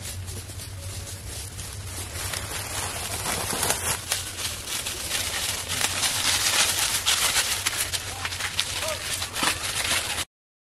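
Several people running over dry bamboo leaf litter: a dense crunching and rustling of many footsteps that grows louder and then stops abruptly near the end.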